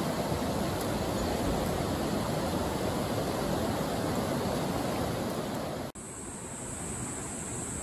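River water rushing steadily over a shallow rocky riffle. About six seconds in it cuts abruptly to a quieter flow with a steady high hiss.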